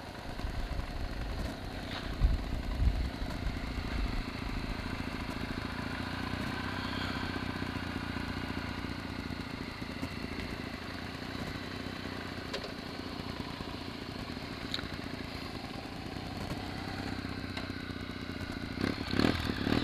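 Honda Shadow 750's V-twin engine running slowly as the bike rolls across gravel, then idling steadily once stopped, with a few uneven low thumps about two seconds in and a couple of louder knocks near the end.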